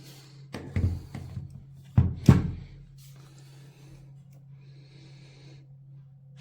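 Hatteker electric hair clipper running with a steady low hum, and two bursts of loud clunks and knocks from handling, the louder about two seconds in.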